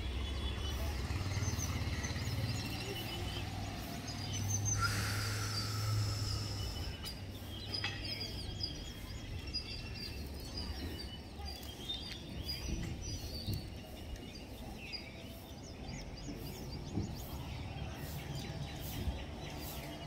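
Outdoor ambience with many small birds chirping in short calls throughout, over a low hum during the first six seconds or so.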